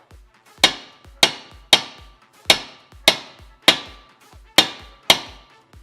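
Hammer striking a pin back into a Subaru WRX shifter linkage: about eight sharp blows, roughly two a second, each with a brief metallic ring.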